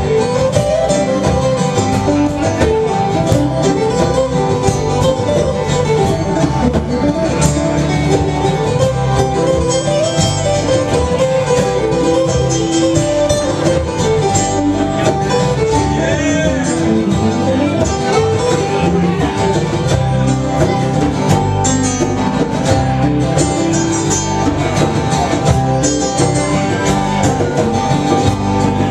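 A live band playing a country-flavoured song, with guitar.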